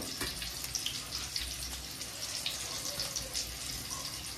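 Flour-coated chicken pieces frying in hot oil: a steady sizzle with faint scattered crackles.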